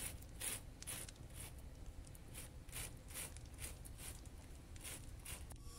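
Natural-looking sausage casing being pushed and bunched by hand onto a plastic sausage-stuffing tube: faint, soft rustling squishes, about two or three a second.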